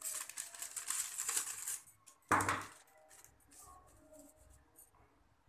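Stiff paper pattern pieces rustling as they are handled and moved on a table for about two seconds, then a single knock, the loudest sound, about two and a half seconds in, followed by faint paper handling.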